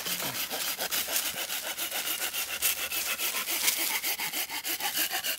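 Hand saw cutting through a split wooden spoon blank on a stump, in quick, even back-and-forth strokes, several a second.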